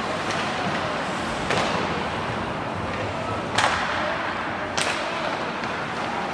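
Ice hockey game in a rink: a steady murmur of crowd voices and rink noise, with three sharp knocks from puck and stick play, the loudest about three and a half seconds in.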